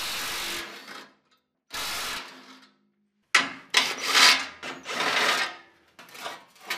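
Cordless impact gun undoing the bash plate bolts in two short bursts of about half a second each. About halfway through, a few seconds of irregular metallic scraping and clattering follow as the plate is worked loose.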